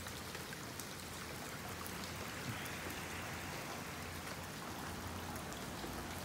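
Rain falling steadily onto standing floodwater: an even hiss of patter with scattered drop ticks.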